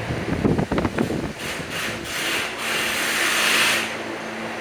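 Handling noise: a few quick clattering knocks, then several scraping, rubbing sounds, the longest lasting about a second, over a steady background hum.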